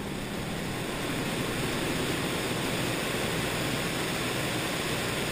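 Steady rush of wind and engine noise from a Junkers Ju 52 in flight, picked up by a camera mounted outside on the wing, with the airflow blowing over the microphone.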